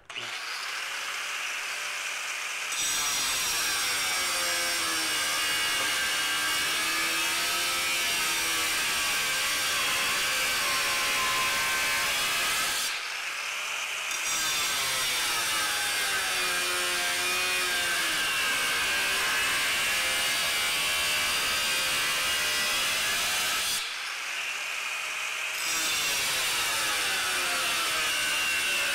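Hercules 11-amp 4½-inch angle grinder cutting steel DOM tubing under heavy hand pressure: the motor's whine wavers in pitch as it loads down, over the harsh hiss of the cut. The cut starts a couple of seconds in, and the cutting noise drops away twice for a second or two, about halfway through and again near the end.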